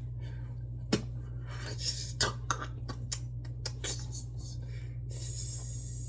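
Footsteps on a hard floor: a run of light, irregular clicks and taps over a steady electrical hum. A soft hiss comes in about five seconds in.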